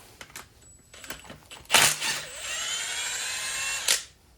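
Electric power tool whining for about two seconds, its pitch rising slightly, as it runs a bolt out during the engine teardown. A loud knock comes just before it starts and another as it stops, after a few light clicks of tools being handled.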